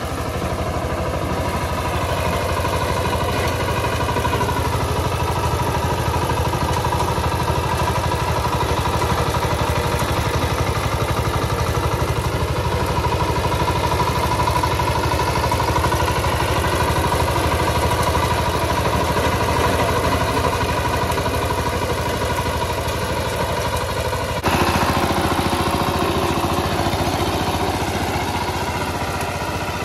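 VST Shakti 130 DI power tiller's single-cylinder diesel engine running steadily under load while its rotary tiller blades churn through soil. The sound shifts abruptly to a slightly louder tone about three-quarters of the way through.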